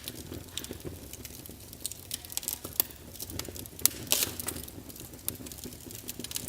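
Wood fire crackling in a fireplace: irregular snaps and pops over a soft low rumble, with a brief flurry of louder pops about four seconds in.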